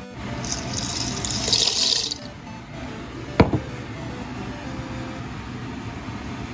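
A pot of boiling broth, with a loud splashing hiss lasting over a second near the start as something is poured in. There is one sharp click a little past the middle, over steady background music.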